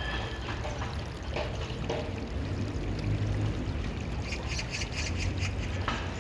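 Stream water flowing and splashing steadily over a low rumble, with a few brief higher splashy flickers about two-thirds of the way through.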